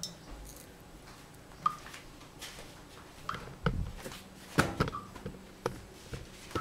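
Camera handling noise as the camera is picked up and carried through a kitchen: scattered knocks and thumps, busiest about three to five seconds in.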